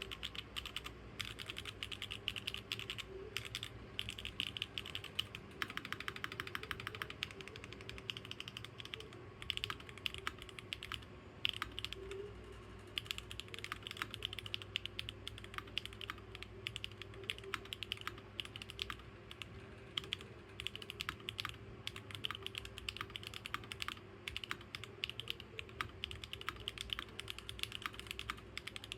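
Continuous typing on a 75% mechanical keyboard with a copper plate and copper internal weight, built without foam: a steady stream of key clicks at an uneven pace, with a quicker run of strokes about six seconds in.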